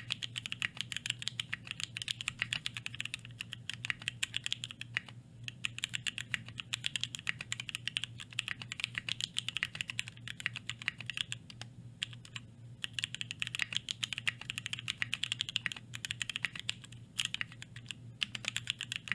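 Fast typing on a 60% custom mechanical keyboard: a dense, continuous stream of key clacks, with brief pauses about five, twelve and eighteen seconds in.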